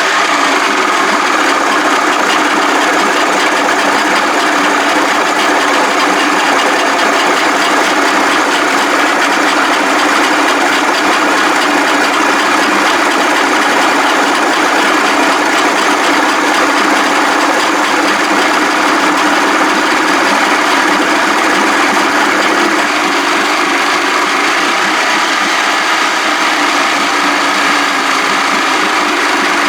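Evinrude 55 hp two-stroke outboard engine running steadily just after starting on a push-button starter.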